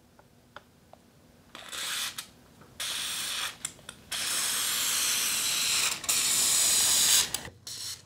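Aerosol can of WD-40 white lithium grease spraying through its straw nozzle in three bursts of hiss, the last about three seconds long, as grease is laid along a garage door opener's rail track.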